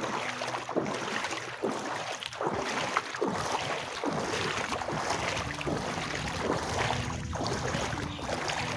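Floodwater sloshing and swishing in a regular rhythm, a stroke a little less than once a second, as someone moves through shallow floodwater. A steady low hum runs underneath.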